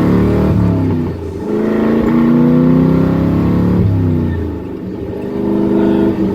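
A 1978 Corvette's swapped-in 5.3-litre V8 running under way, its engine note rising and falling: it drops a little over a second in and again around four seconds, then climbs again near the end.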